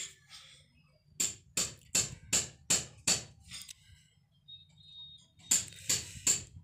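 A run of sharp knocks, about three a second: six in a row, a pause, then four more near the end.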